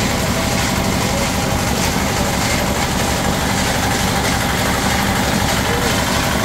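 Small engine-driven concrete mixer running steadily while mixing concrete, a constant engine hum with no breaks.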